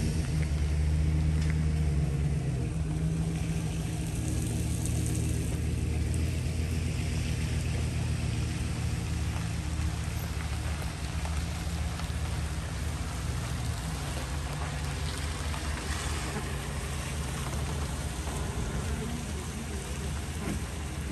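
Chevrolet Suburban's engine idling steadily just after being started, its idle easing down slightly a few seconds in.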